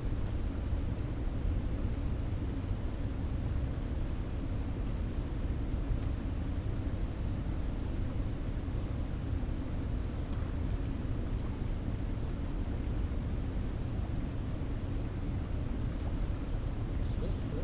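Steady rushing rumble of water flowing out of a dam spillway, with insects trilling steadily and high in the background.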